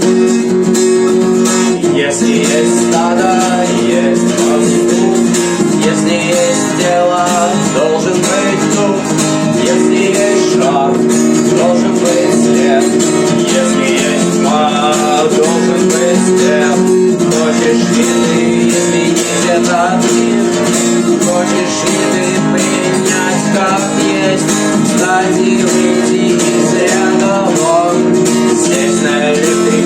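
Guitar playing an instrumental passage: strummed chords with a melody line moving above them.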